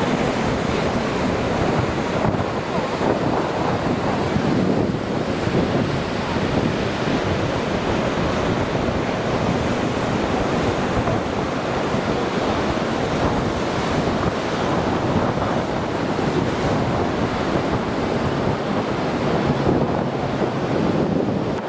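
Pounding storm surf from a hurricane swell, breaking steadily, with high wind buffeting the microphone.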